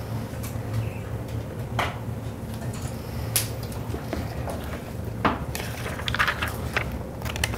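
A tablet being handled on a lectern: a handful of separate light taps and knocks, with a short cluster of them about six seconds in, over a steady low hum.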